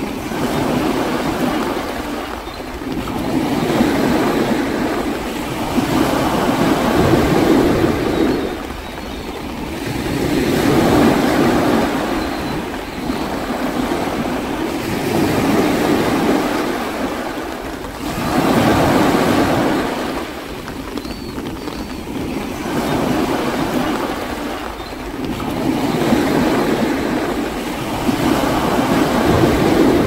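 Sea surf: waves breaking and washing in, rising and falling in slow surges about every three to four seconds.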